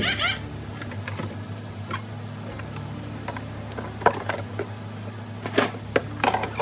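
Scattered light clicks and knocks from things being handled at a kitchen sink over a steady low hum, with a short rush of running water right at the start.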